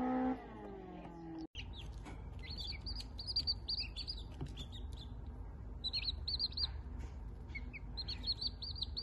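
Young domestic chicks peeping: runs of short, high peeps, several a second, starting about two seconds in and coming in clusters.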